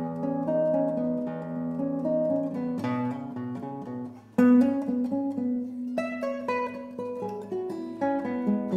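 Solo classical guitar with nylon strings, fingerpicked: a slow melody over sustained bass notes. A little after four seconds the sound briefly drops away, then comes back with a loudly plucked attack.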